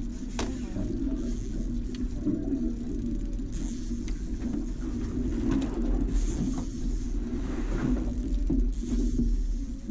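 Mercury outboard motor running at trolling speed, a steady low rumble, with water splashing now and then as a hooked fish is worked to the landing net. A single sharp click about half a second in.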